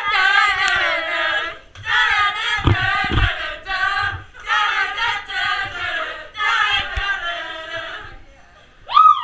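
A group of women singing together loudly in short phrases, with brief breaks between them. A high rising whoop near the end.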